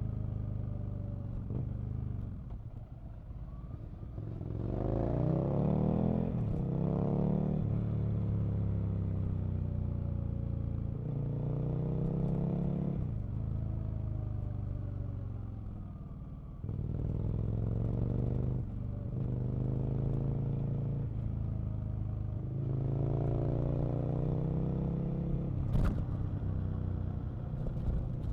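Aprilia RSV Mille's V-twin engine pulling hard several times, its pitch climbing on each acceleration and dropping back between them, over a constant low rumble and rushing noise. A single sharp click sounds near the end.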